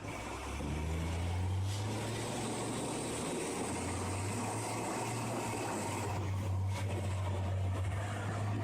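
Heavy dump truck's diesel engine running with a steady low drone that swells just after the start. A faint high hiss runs through the middle of it.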